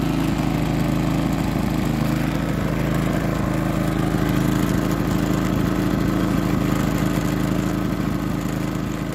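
Pulsar GX400BN inverter generator running steadily, with a nasty ratty chatter from its loose, under-shimmed rear wheels vibrating against the chassis once weight is off them. The chatter sounds like the crank bearing or the bottom end of the engine going out, but it is only the wheels.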